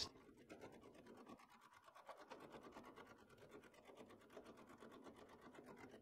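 Faint, quick clicking of a ratchet wrench turning the suction service valve stem open on an air-conditioner condensing unit, letting the pumped-down refrigerant and oil back toward the compressor.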